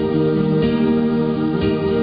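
Music with long held chords that change about once a second.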